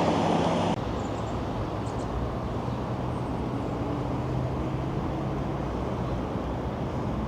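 Steady low rumble of motor-vehicle traffic, with a faint engine hum.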